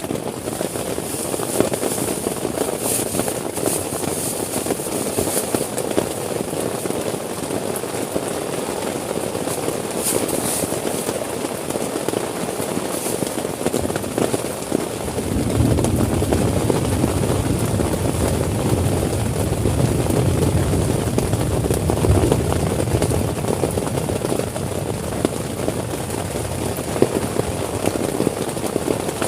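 Heavy rain falling on a tent, a steady hiss full of small crackling drops. About halfway through, a deep low rumble sets in under the rain and carries on.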